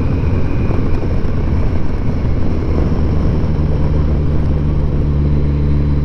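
Kawasaki GTR1000 (Concours) motorcycle's inline-four engine running at steady road speed, with wind rushing past the bike-mounted microphone. About halfway through, the engine note settles into a steadier, more distinct hum.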